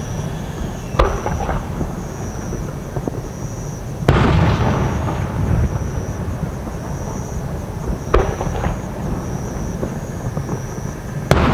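Aerial fireworks shells bursting: four booms about three to four seconds apart, the second the loudest, each followed by a rolling, echoing rumble.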